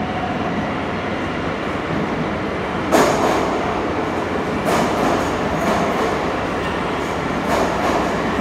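St Petersburg metro 81-722 "Yubileyny" train rolling along the station platform with its own traction switched off, hauled by a second train: a steady rumble of steel wheels on rail. A sharp wheel clack about three seconds in is followed by several weaker clacks at irregular intervals.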